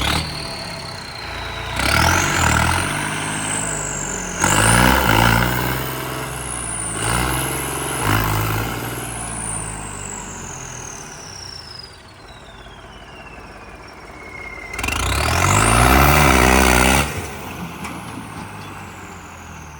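Tractor engine revved hard four times, the pitch climbing with each rev and dropping back to a lower run in between; the last rev, near the end, is the loudest. A thin high whistle glides up and down over it.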